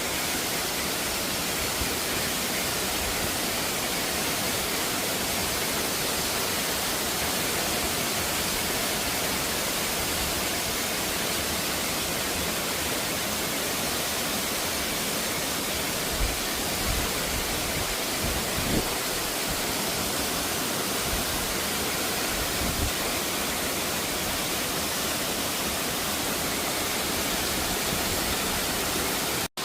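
Mountain valley stream rushing steadily, a dense even hiss of falling water, with a few brief low thumps a little past the middle.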